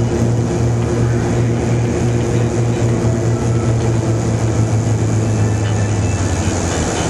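Light propeller airplane's engine droning steadily, heard inside the cockpit on final approach to landing; the engine note drops a little about six seconds in as power is brought back for touchdown.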